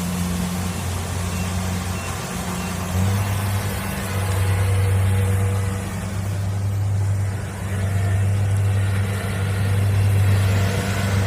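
Kubota DC70 Plus combine harvester's diesel engine running with a steady low hum, stepping up in loudness about three seconds in and then rising and falling as the load changes.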